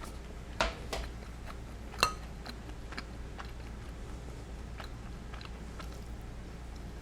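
Close-miked eating: chewing with a few short clicks, and one ringing clink of a utensil against a dish about two seconds in.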